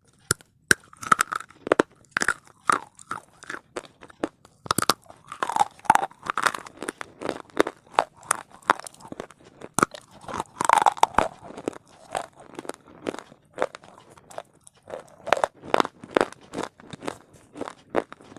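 Loud, dry crunching of something being bitten and chewed close to the microphone. Sharp crunches come several times a second, with a few louder bites among them.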